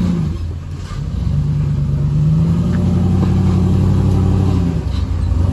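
Off-road Jeep's engine revving under load while rock crawling. The revs climb about a second in, hold, and fall back near the end.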